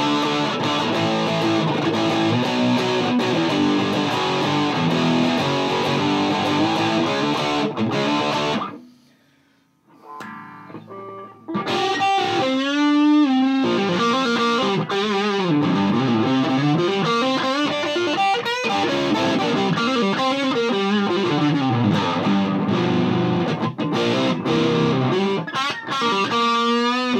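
Electric guitar played through a Mesa Boogie Dual Rectifier tube amp set to 50 watts, overdriven: chord riffing, a short stop about nine seconds in, then lead lines with wide vibrato and slides.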